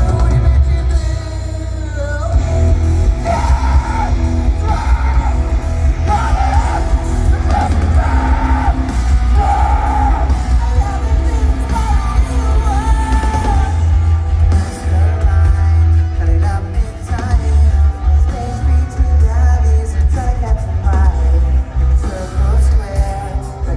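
Live rock band playing loud distorted guitars, bass and drums, with a male singer singing and yelling over them, heard through a fan's phone microphone in a crowd.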